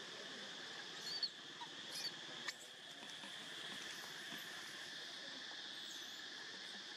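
Steady drone of insects, with a few short high-pitched squeaks and a sharp click between about one and two and a half seconds in, and a brief falling chirp near the end.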